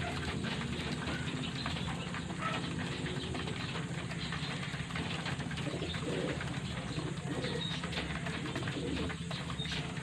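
A flock of young racing pigeons eating grain from a plastic trough feeder: a busy patter of pecking clicks, with a few soft coos in the middle, over a low steady hum.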